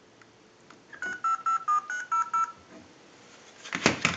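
Handheld touch-tone dialer beeping out a quick string of about eight dialing tones. It is held against a telephone transmitter to dial a number. A couple of sharp knocks follow near the end.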